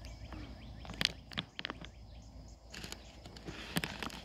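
Quiet outdoor background with a scattered run of short clicks and rustles: footsteps in grass and handling of the phone that is recording.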